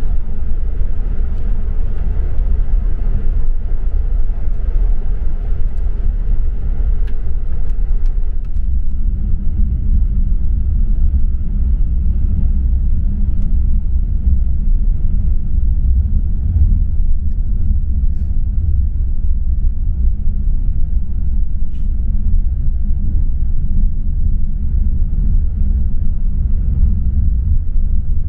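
Steady low rumble of a coach bus travelling on the highway, heard from inside the cabin: engine and road noise with no breaks. A lighter hiss above the rumble thins out about eight seconds in.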